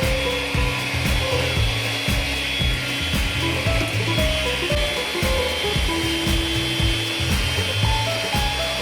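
Background music with a melody and a steady beat, over the steady whine of a cordless handheld vacuum cleaner running.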